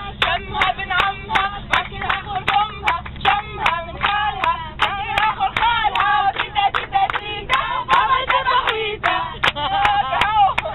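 A group singing together and clapping along in rhythm, about three claps a second, with the coach's steady low engine hum beneath.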